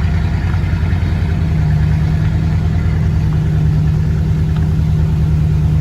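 Truck engine running steadily under load with road noise, heard from inside the cab while towing a trailer carrying a heavy log at low speed.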